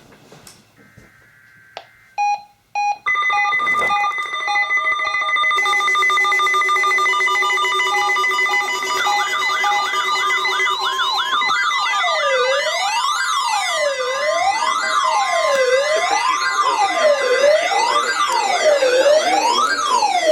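Layered electronic alert tones and siren wails: a few short beeps, then steady held tones, joined about nine seconds in by several siren wails sweeping up and down, about one sweep every second and a half, piling up toward the end.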